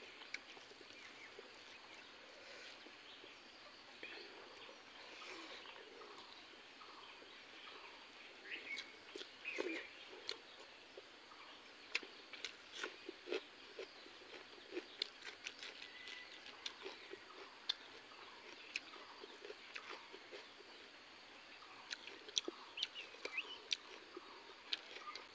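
Close-up eating sounds of a meal eaten by hand: chewing with wet lip smacks and small mouth clicks, and fingers mixing rice on the plate. They start sparse and come often from about a third of the way in, over a faint steady hiss.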